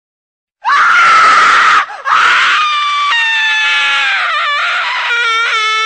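A loud, high-pitched scream bursts in suddenly about half a second in, harsh at first, breaks off briefly near two seconds, then carries on as a long high wail that sinks slightly in pitch.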